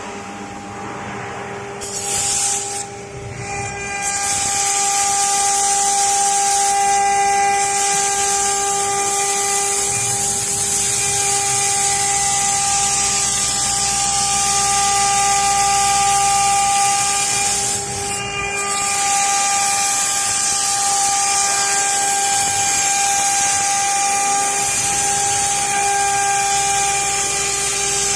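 A 1325 CNC wood router running and cutting wood: a steady, high spindle whine over a loud hiss. The sound briefly drops and changes about two seconds in and again about eighteen seconds in.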